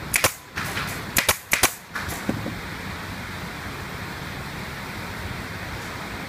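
Workshop noise in a furniture factory: a quick run of sharp knocks or bangs in the first two seconds over a steady hiss of machinery.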